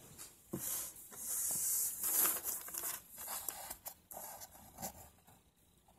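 Soft rustling and hissy handling noises, with a few small clicks, dying away near the end.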